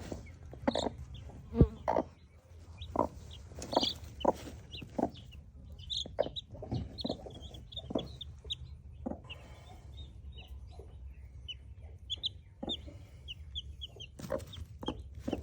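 Chicks peeping in many short, high cheeps, mixed with the low, repeated clucking of a hen.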